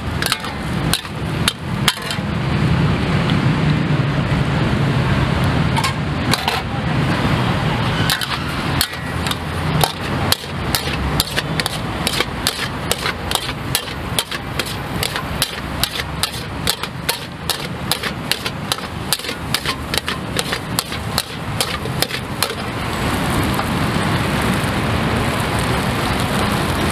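A cooking utensil knocking rapidly and regularly, about two or three strikes a second, over a steady low rumble.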